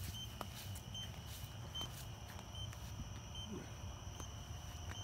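Soft footsteps and small clicks over a steady high-pitched whine that dips briefly about every 0.8 seconds.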